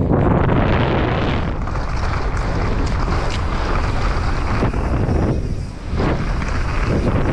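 Wind buffeting the action camera's microphone and knobby tyres rolling fast over a dirt trail as a mountain bike descends at speed, with a brief lull about five and a half seconds in.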